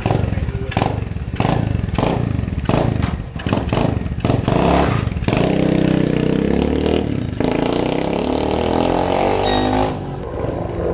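SSR 125 pit bike's single-cylinder engine running unevenly on choke after sitting unused for over a year, with irregular sharp pops and blips for the first few seconds. It then revs and settles back into a steadier note, which drops off near the end.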